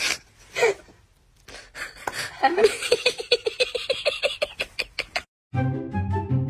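A person giggling in a fast run of high-pitched laughs over a few light clicks. Light music begins near the end.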